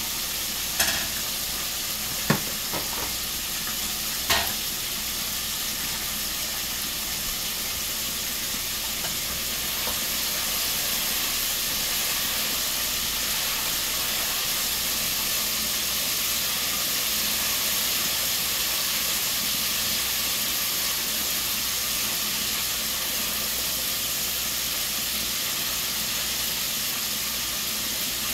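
Chicken frying in hot oil in a deep pot, a steady sizzle throughout. A few sharp knocks of a wooden spoon against the pot come in the first few seconds.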